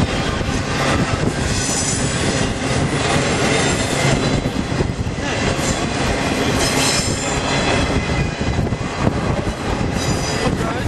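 Freight train cars rolling past with a steady rumble and clatter. A high-pitched wheel squeal comes and goes over it.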